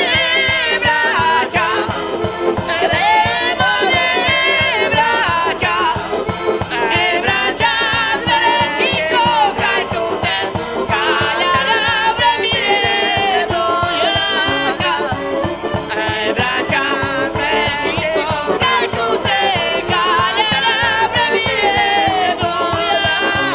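Roma wedding band playing a lively tune: two saxophones carry a wavering melody over accordion, guitar and a drum keeping a steady beat, with the accordionist singing.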